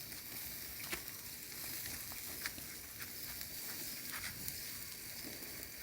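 Wood bonfire burning with a steady faint hiss and scattered sharp crackles, every second or so.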